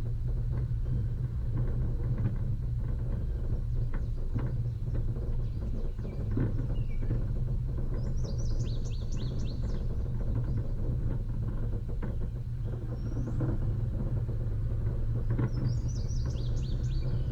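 Off-road vehicle's engine running steadily, with occasional knocks. Bird chirps come in quick descending runs twice, about halfway through and near the end.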